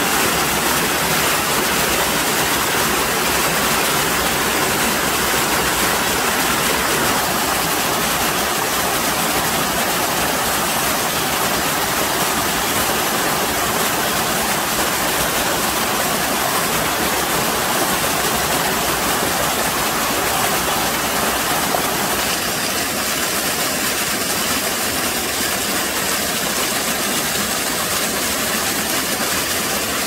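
Small mountain-stream waterfall pouring and splashing over rocks: a steady rush of water, its tone shifting slightly about two-thirds of the way through.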